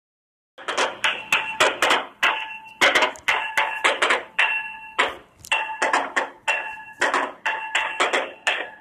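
A hard object struck over and over in an uneven rhythm as homemade noise-making, starting about half a second in. Each hit is sharp and leaves a short ringing at the same few fixed pitches.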